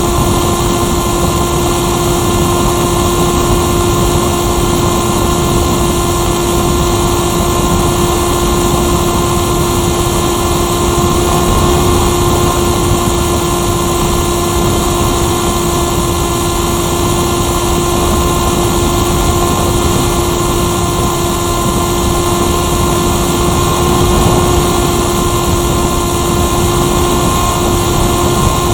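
The Firstar 2000 motor glider's motor and propeller running steadily at constant speed, with rushing air noise, heard from the onboard camera.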